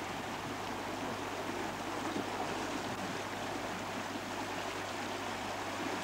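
Shallow river rushing steadily over rocks and around stepping stones.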